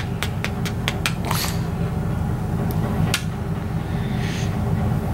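A quick run of soft kisses smacked onto a pug's head in the first second, then a brief sniff-like rustle and a couple of later clicks, over a steady low background hum.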